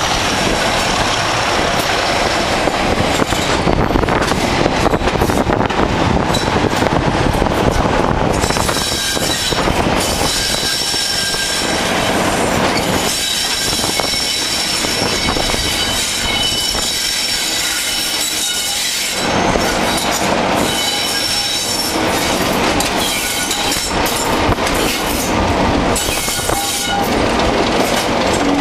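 Class 37 and Class 26 diesel locomotives working together under power, their engines thrashing, with wheels rattling over the track. High-pitched wheel squeal comes and goes as the train takes the curves.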